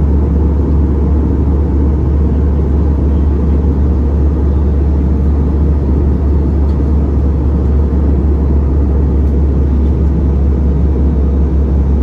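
Steady deep drone of an airliner cabin in flight: engine and airflow noise, even and unchanging throughout.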